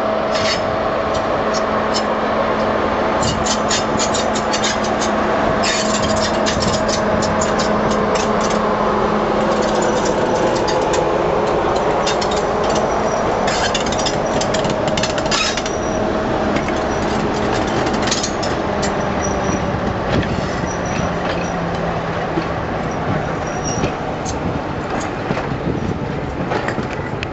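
Class 47 diesel-electric locomotive passing slowly with coaches, its Sulzer twin-bank V12 engine running with a steady drone. Sharp wheel clicks come in clusters as it crosses the pointwork, and the engine note sinks and fades once the locomotive is past and the coaches roll by.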